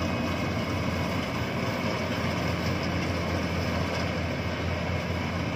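Yanmar YH850 rice combine harvester's diesel engine and threshing machinery running steadily under load while harvesting, a constant low hum with an even mechanical din above it.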